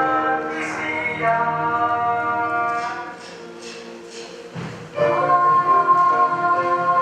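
Choral singing with orchestral accompaniment, held notes that soften about three seconds in and swell again at about five seconds.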